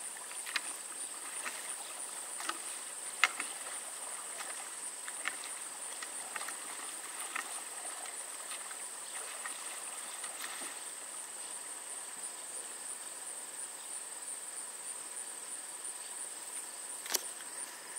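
Insects chirring steadily in a high, finely pulsing drone, with a few light clicks through the first half and one sharper click near the end.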